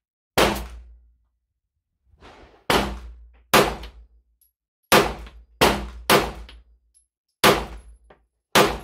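Eight pistol shots from a Swiss-made, all-metal CZ-pattern double/single-action pistol, fired one at a time at an uneven pace, some in quick pairs, each sharp report fading within about half a second.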